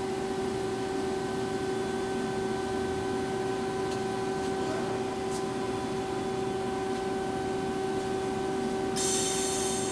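Lucas 542B-84 CNC horizontal boring mill running under power with a steady hum, and a short hiss near the end.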